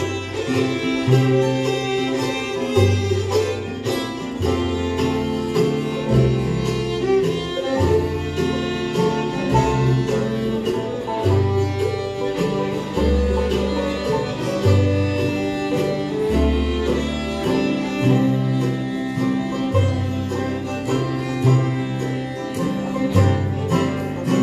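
Live bluegrass band playing an instrumental break with no vocals: fiddle, banjo, acoustic guitar and mandolin over an upright bass that steps between notes every second or so.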